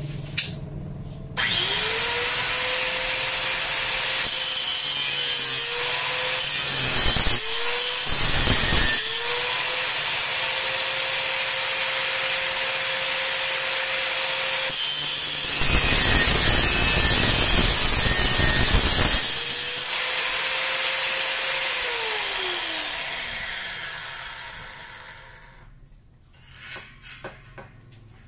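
Bosch GWS 060 angle grinder on a chop-saw cutting stand, spinning up to a steady whine and cutting through rectangular steel tubing with an abrasive cut-off disc. The motor pitch sags with a harsh grinding rasp as the disc bites, twice briefly and then for several seconds in the middle, before it is switched off and winds down with a falling whine.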